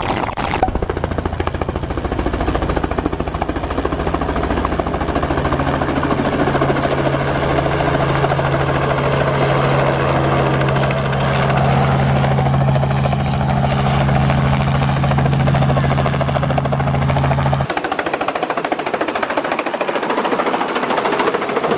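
Small two-bladed helicopter running loudly at close range as it lifts off from a helipad, its rotor and engine making a steady chopping noise with a strong low hum. About four seconds before the end the low hum cuts out, leaving the higher rotor and engine noise.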